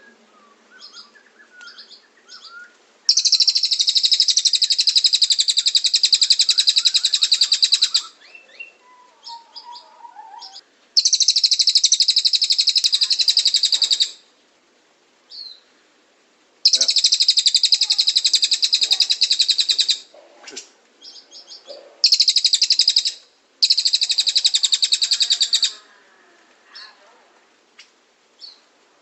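Cililin bird singing: five long, very rapid high-pitched trills of a few seconds each, the first and longest about three seconds in, with soft scattered chirps in the gaps between them.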